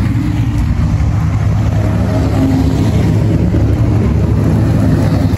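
Ferrari V8 supercars, a 488 and then a 458 Spider, driving slowly past with a steady, low exhaust note.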